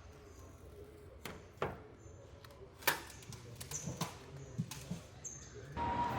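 Workshop clatter in a truck factory: scattered knocks and clicks of tools and parts, the loudest about three seconds in. Near the end a machine or power tool starts up with a steady noise and a slowly rising whine.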